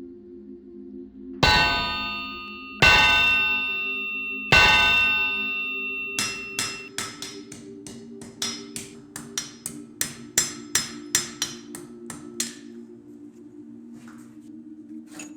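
Blacksmith's hammer striking metal on an anvil: three heavy blows about a second and a half apart, each leaving a long bright ring, then a run of lighter, quicker blows at about three a second that stops about two-thirds of the way through.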